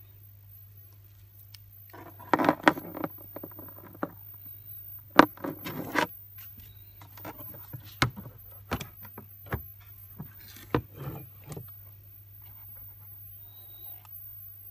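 Handling noise of a tape recorder's coiled power cord and plug: rustling and clattering come in two bursts about two and five seconds in. Scattered sharp clicks and knocks follow. A low steady hum sits underneath.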